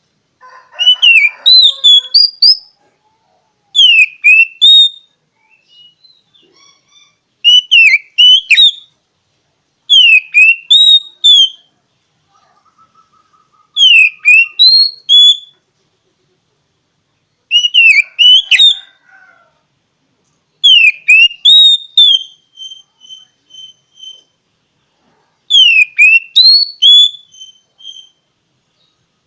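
Oriental magpie-robin (kacer) singing: a loud, clear whistled phrase of rising and falling notes repeated about every three to four seconds, some nine times, with soft chattering notes in the gaps.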